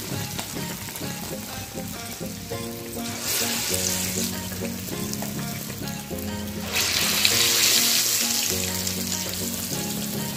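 Urad dal vadas deep-frying in hot oil in a kadhai: a steady sizzle that swells loudly about three seconds in and again around seven seconds, as fresh balls of batter go into the oil. Faint background music plays underneath.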